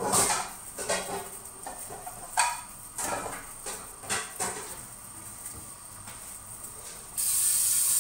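Kitchen cookware clatter: several sharp clicks and knocks of pots, lid and utensils in the first half, then a steady rushing hiss that starts near the end and lasts about a second.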